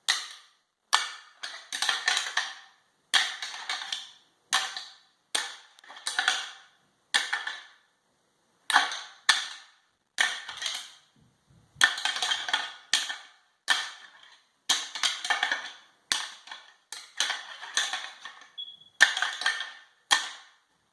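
Whitetail buck antlers clashing and rattling: the rattling sound of two bucks fighting. It comes as irregular bursts of sharp clicking and clacking, each lasting about a second, with short silences between them.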